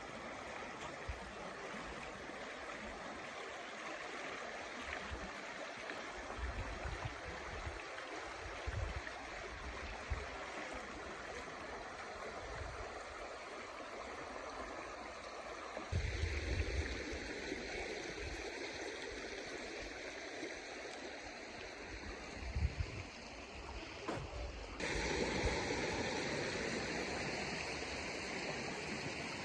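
Stream water running and splashing as a steady rushing, with the character shifting abruptly twice, about halfway and again near the end, with occasional low rumbles.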